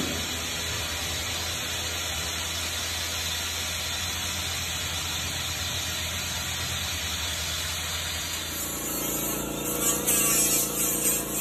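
Steady low hum for most of the stretch, then, about eight and a half seconds in, uneven hissing of compressed air from a pneumatic tool on an air hose, worked along a sunroof frame.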